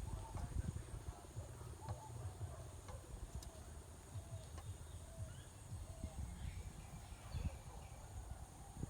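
Faint, evenly repeated short animal calls, about one every two-thirds of a second, over low rumbling and a few sharp clicks.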